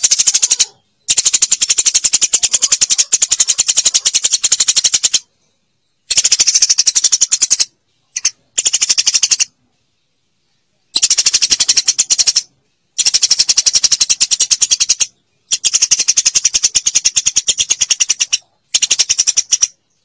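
Eurasian tree sparrow calling in rapid runs of high chirps, in eight or so bouts of up to four seconds broken by short silences.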